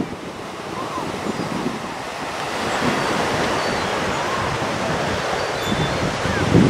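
Lake Michigan surf washing onto the beach, with wind blowing across the microphone; the noise grows louder about two and a half seconds in, and a short bump of wind on the microphone comes near the end.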